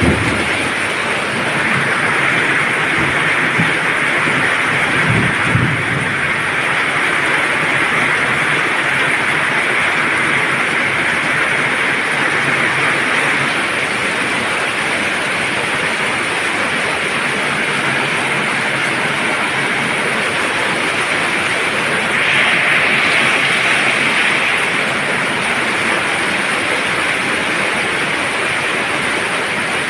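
Steady rain falling with an even hiss, swelling briefly about two-thirds of the way through. A few low thuds sound in the first seconds.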